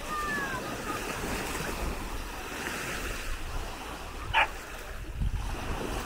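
Small Baltic Sea waves breaking and washing up on a sandy shore, with wind buffeting the microphone. A short falling call sounds at the very start, and a brief sharp cry stands out as the loudest moment about four seconds in.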